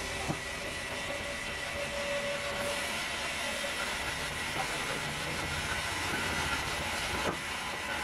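Sawmill band saw running steadily, a constant mechanical hum and hiss with a high steady whine. Two short wooden knocks, one just after the start and one near the end, as sawn boards are set down.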